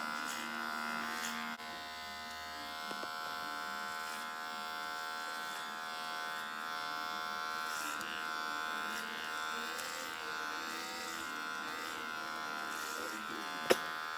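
Electric hair clipper running with a steady buzz, its tone shifting slightly now and then. A single sharp click comes near the end.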